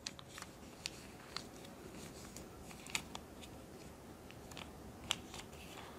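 A sheet of paper being folded and creased by hand: soft, irregular crackles and rustles as fingers press and tuck the folds, with a few sharper ticks.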